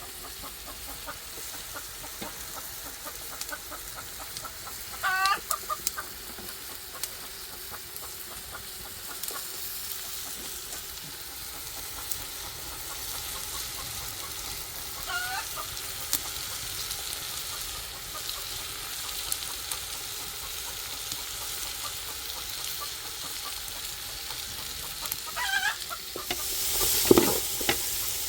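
Food frying in a pan with a steady sizzle. A chicken clucks in short bursts three times, about five, fifteen and twenty-five seconds in. A louder clatter comes near the end.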